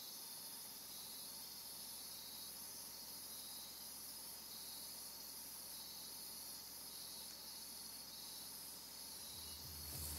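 Faint, steady high-pitched chirring of crickets. A low musical drone comes in near the end.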